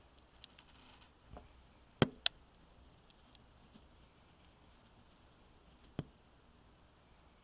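A few sharp clicks and knocks over near silence: two loud ones in quick succession about two seconds in, another about six seconds in, and a couple of fainter ones before them.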